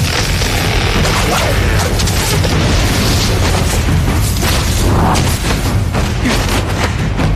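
Loud, dense dramatic soundtrack with deep booming hits, many sharp impacts and a rushing noise that does not let up.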